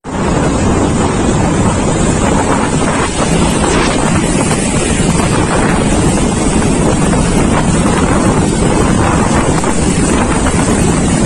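Storm noise from a cyclone: wind buffeting the microphone over heavy rain and rushing floodwater, a loud, steady, unbroken rush.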